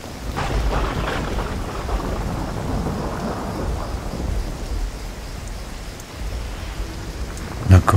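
Heavy rain falling steadily with thunder, a low rumble rolling in about half a second in. A sharp, loud crack comes just before the end.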